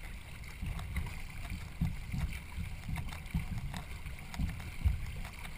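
Two-person racing canoe under way, paddles working the water, with irregular low knocks and thumps.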